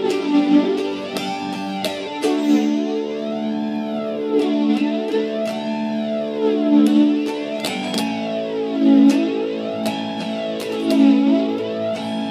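Guitar chords picked and left to ring, with a slow sweeping, swirling effect washing over the sound about every two seconds.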